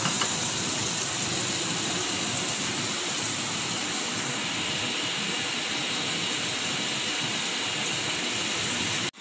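Flour-coated beef chunks sizzling in hot oil in a stainless steel wok over a gas burner, a steady sizzle that cuts off abruptly near the end.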